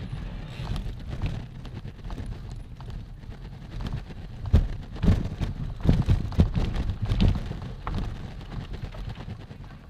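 Mountain bike rolling over a rough forest trail, its frame and parts rattling and knocking over stones and roots, with a steady low rumble of tyres and wind. The knocks come thickest and loudest in a run from about halfway through.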